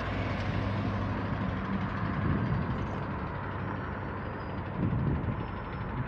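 Norfolk Southern diesel-electric locomotive's engine running with a steady low drone.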